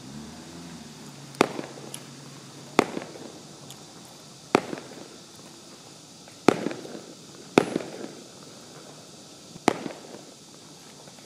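Six sharp firework bangs at uneven intervals, one to two seconds apart, each followed by a short echoing tail.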